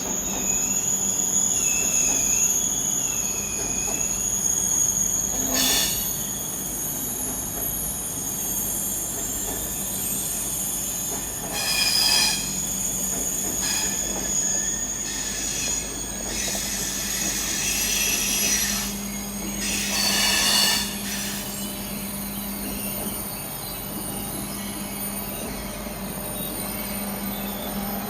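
Eurostar train at a station platform: a steady high electrical whine over a low hum, broken by several short harsh bursts, the loudest a little under halfway and about two-thirds through.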